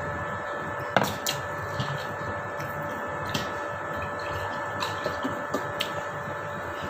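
Steady hum of a window air conditioner, with a sharp knock about a second in, likely a drinking glass set down on the table. A few lighter clicks and taps follow as a plastic soda bottle is handled and tipped to pour.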